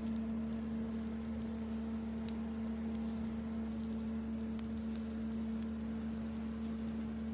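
Oil-brushed chicken tikka on skewers sizzling over hot charcoal, with a few sharp crackles, under a steady low hum.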